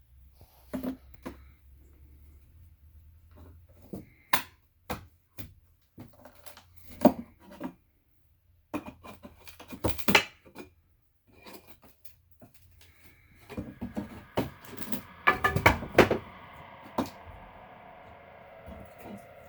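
Irregular knocks and clatters of hard objects being handled, with a faint steady hum underneath that grows slightly in the last few seconds.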